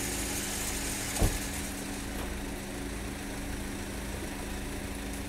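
A pickup truck's engine idling steadily, with one short dull thump about a second in.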